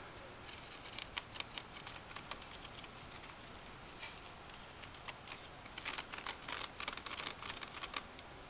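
Short, quick scratchy clicks on a sisal-covered scratching ramp, a scattered group about a second in and a denser run over the last couple of seconds.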